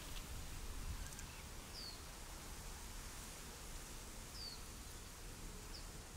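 Faint outdoor ambience: a bird gives three short, high, falling chirps over a steady soft hiss of light breeze.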